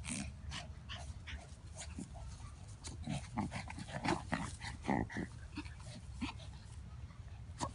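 An Australian Shepherd puppy and Yorkshire terriers play-wrestling, making a string of short, irregular snuffles, grunts and small vocal noises. The noises are loudest around four to five seconds in.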